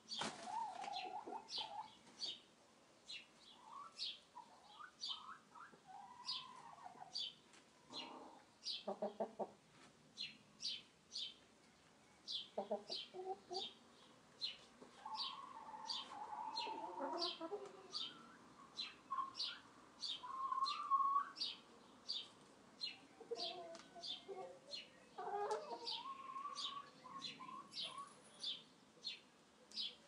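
Hens clucking and calling in irregular bouts, with a quick run of clucks and some longer drawn-out calls. Behind them a small bird chirps rapidly and regularly, about two high chirps a second.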